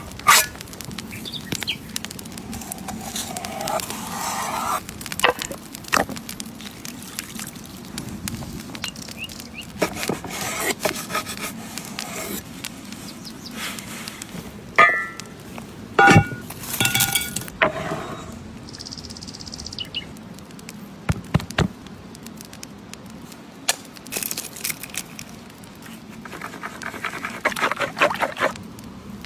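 Food-preparation sounds: irregular knocks, taps and rubbing of utensils and ingredients, with a few short ringing clinks and a brief high hiss just past the middle.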